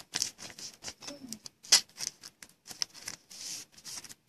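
Trading cards being handled against an opened foil pack wrapper: a run of light clicks, taps and rustles, with one sharper click a little before the halfway point.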